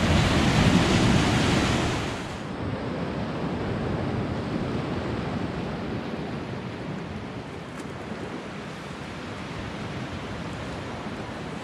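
Sea surf breaking and washing over rocks. It is louder for about the first two seconds, then settles into a steady, quieter wash of waves.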